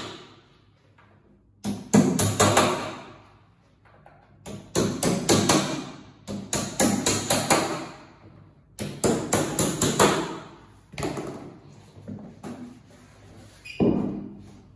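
Hammer tapping during flat-pack furniture assembly, in quick runs of several blows about a second long, with short pauses between the runs.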